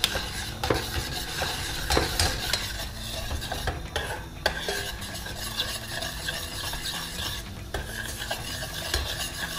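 Metal spoon stirring a butter and olive oil sauce in a stainless steel saucepan, knocking against the pan in irregular clicks, while the hot butter sizzles steadily over the gas flame.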